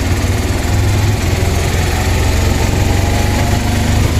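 Auto-rickshaw engine running as the three-wheeler drives along, a steady low engine note with an even fast pulse and road noise, heard from inside the open passenger compartment.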